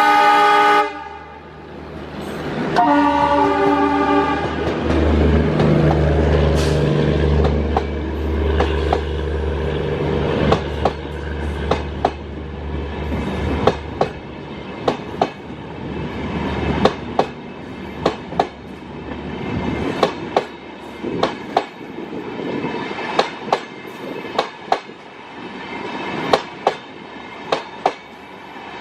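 An ALCO diesel locomotive's multi-tone horn cuts off just after the start and sounds again briefly about three seconds in; the locomotive's engine drones as it passes, then the LHB coaches follow with a steady run of wheel clicks over the rail joints.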